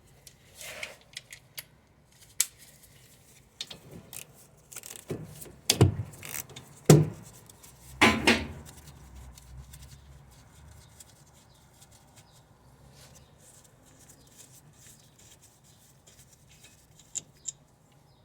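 Hand tools clinking and knocking on metal while a car's brake caliper is unbolted: a few sharp knocks about six to eight seconds in, then only occasional faint clicks.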